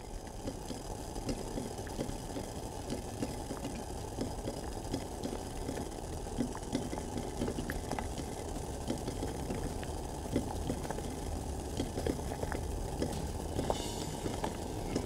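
Water boiling in a stainless steel saucepan on an electric hob: a steady low rumble with many small bubbles popping and ticking.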